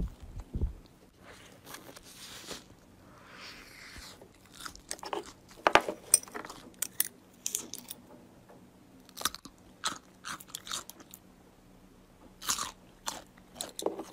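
Slime being handled for ASMR: scattered crunchy crackles and clicks, first as a yellow slime is squeezed by hand, then as a metal spoon scoops through pink jelly-cube slime in a glass cup.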